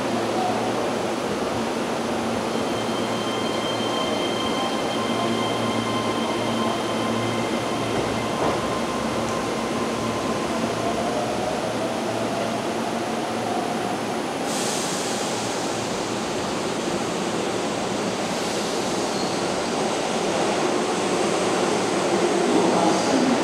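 Keihan 13000-series electric train approaching the platform over a steady station hiss. Its running and wheel noise grows louder over the last few seconds as it pulls in.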